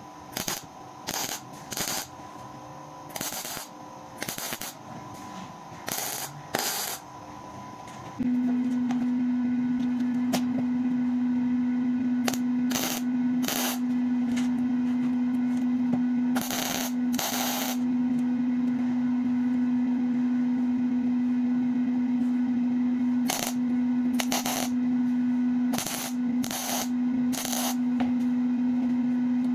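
MIG welding gun laying short tack welds on small steel nuts and washers: about a dozen brief bursts of arc noise, each under a second, in irregular groups. From about eight seconds in, a loud steady low hum runs underneath.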